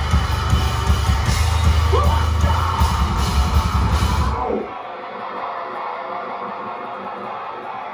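Metalcore band playing live at full volume, with distorted guitars, bass, pounding drums and yelled vocals. About four and a half seconds in the heavy low end stops abruptly and a thinner, quieter sound carries on.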